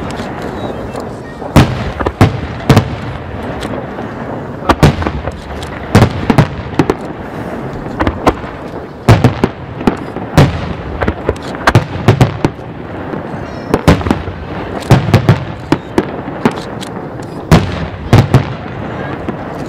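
Aerial fireworks of a wide starmine finale barrage: shells bursting in rapid clusters, with loud sharp bangs every second or so throughout.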